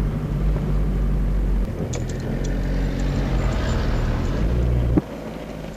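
Car engine running at low speed, heard from inside the cabin, its pitch shifting about one and a half seconds in. The sound drops suddenly in loudness near the end.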